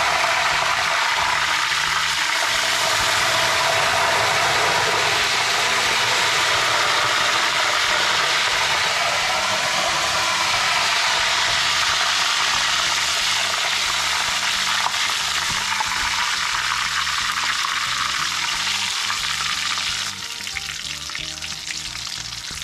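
Slices of raw cooking banana deep-frying in a wok of hot oil, the oil bubbling and sizzling steadily, then noticeably quieter about twenty seconds in. The vigorous bubbling is the sign that the chips are not yet done.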